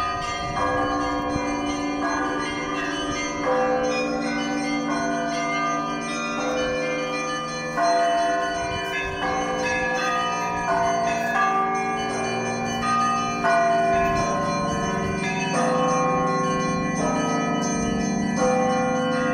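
Church bells ringing: several bells of different pitches struck one after another, a fresh stroke about every second, over the long ring of a deep bell.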